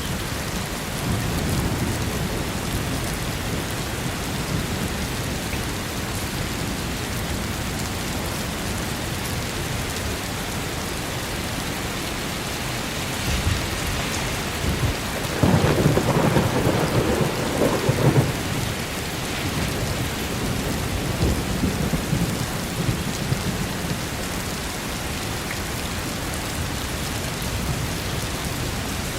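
Steady rain with thunder: an even rush of rain throughout, and a rolling thunder rumble that swells about halfway through and lasts a few seconds, with fainter rumbles near the start and after it.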